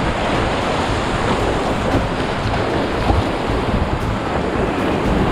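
Whitewater rapid on a river swollen with spring meltwater, rushing steadily as a dense noise of churning water, with wind buffeting the microphone.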